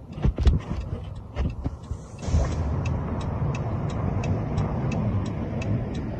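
A few knocks, then from about two seconds in a motor vehicle's engine running steadily, with a light tick repeating about three times a second.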